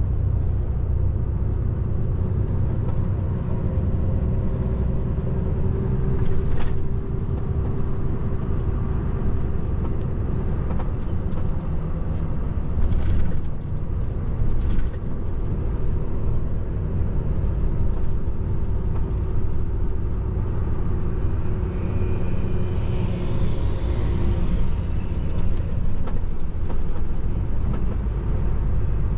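Volvo heavy truck's diesel engine and road noise, heard from inside the cab while driving: a steady low rumble. A few brief clunks sound about a third and halfway through.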